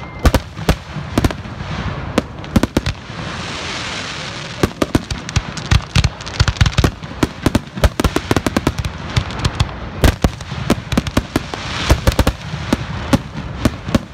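Aerial fireworks display: shells bursting one after another in a rapid barrage of sharp bangs and crackles, with a noisy hiss between the reports.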